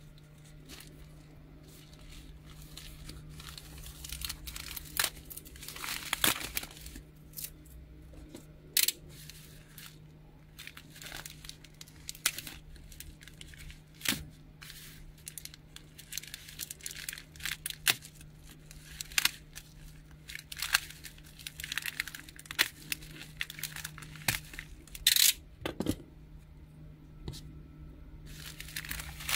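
Padded plastic mailer crinkling and being torn open by hand, in an irregular run of sharp rustles and crackles.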